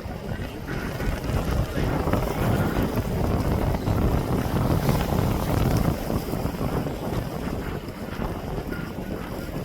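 Wind blowing across the microphone, a steady gusting rumble heaviest in the low end, over the faint wash of the sea.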